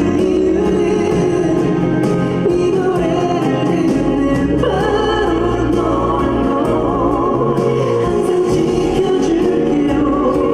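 Male pop singer singing live into a handheld microphone over instrumental accompaniment, a continuous sustained melody with sliding pitch.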